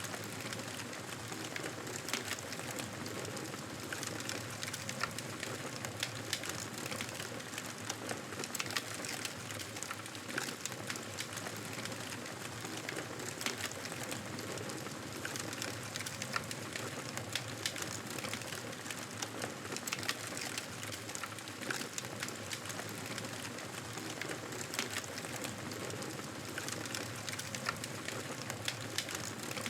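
Wood fire crackling in a fireplace: a steady hiss with frequent, irregular small pops and snaps.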